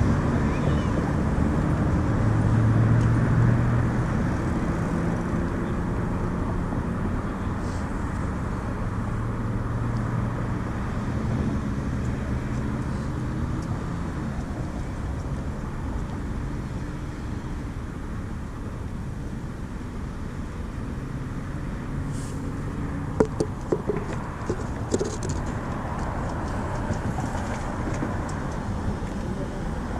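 City traffic ambience: a steady wash of road traffic, with a vehicle engine's low hum that fades away over the first dozen seconds. A short cluster of sharp clicks comes about three-quarters of the way through.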